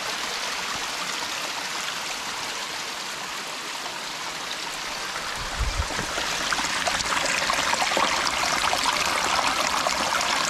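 Water running and splashing down a rock face at a small stream waterfall, growing louder from about six seconds in. A brief low thump comes near the middle.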